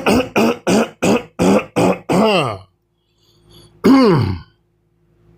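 A man coughing and clearing his throat: about seven short, voiced coughs in quick succession, then one longer cough falling in pitch about four seconds in.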